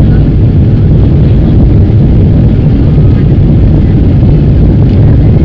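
Loud, steady rumble of a Boeing 777's jet engines and rushing air, heard inside the passenger cabin during the climb after takeoff.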